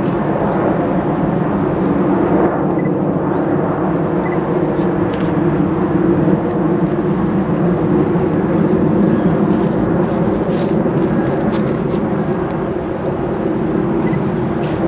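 Diesel engines of a slow-moving convoy of Class 56 locomotives running with a steady low drone.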